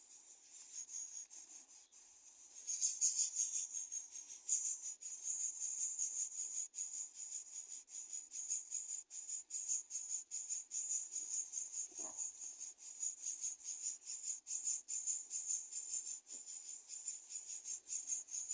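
Insects trilling in a steady, high-pitched chorus that grows louder about three seconds in.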